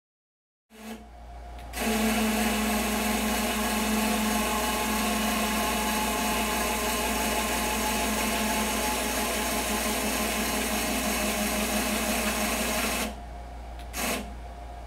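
Electric drive motor of a motorized X-Y easel running steadily for about eleven seconds as it moves the framed painting, then stopping abruptly; a short click follows near the end.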